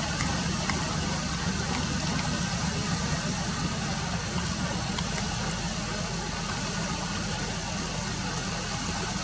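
Steady low engine rumble with a hiss over it, unchanging throughout.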